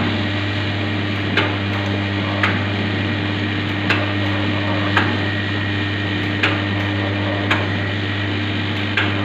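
Powder pouch-packing machine running: a steady motor hum with a sharp mechanical knock about once every second or so, evenly repeated as the machine cycles. Its brake and clutch are working normally under the PLC board's control.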